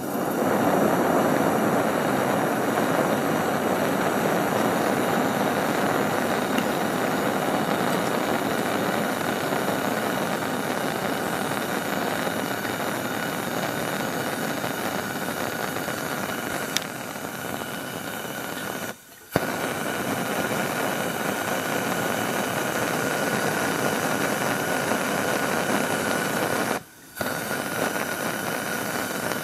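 Coleman 200A pressurized white-gas lantern burning at full light, giving a steady hiss from its generator and burner. The sound cuts out briefly twice, about two-thirds of the way through and again near the end.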